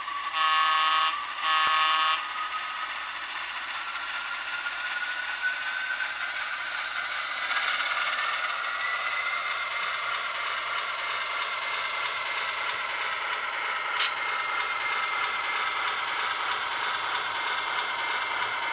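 HO scale model locomotive's sound-system horn blown twice, then the train running with a steady mechanical clatter and a whine that rises slowly in pitch and levels off about halfway through. A single sharp click comes near the end.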